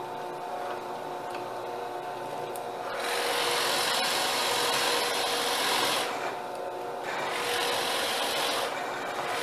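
Power drill boring dowel holes in wood: the motor hums, then about three seconds in the bit bites and cuts with a loud rough grinding, eases off around six seconds as the bit is backed out to clear chips, and cuts in again twice.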